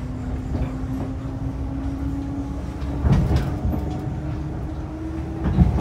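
Inside a moving local train: the steady low rumble of wheels on rails under a running drone that steps up a little in pitch about three seconds in. Two heavier jolts come from the wheels, one about three seconds in and one near the end.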